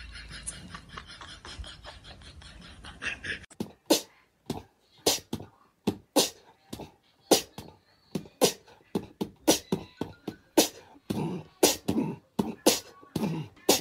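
A low steady hum, then about three and a half seconds in a rhythmic beatbox-like run of sharp clicks and thumps starts, about two a second, with heavier low thumps near the end.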